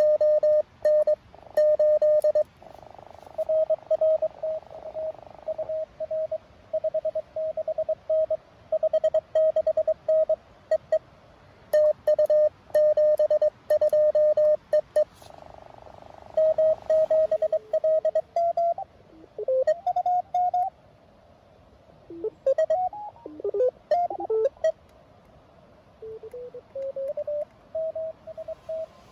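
Morse code from a Mountain Topper MTR-4B QRP transceiver: a single tone keyed rapidly on and off in dits and dahs, with short stretches of receiver hiss between exchanges. In the second half the received signals slide up and down in pitch as the receiver is tuned across the band, then settle on one steady tone near the end.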